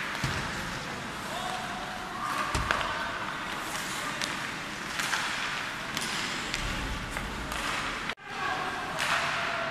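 Ice hockey practice noise on a rink: skate blades scraping the ice and several sharp clacks of pucks against sticks and boards, with faint children's voices.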